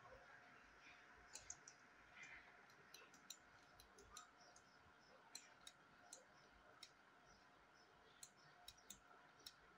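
Near silence with faint, irregular clicks of a computer mouse and keyboard, over a faint steady hum.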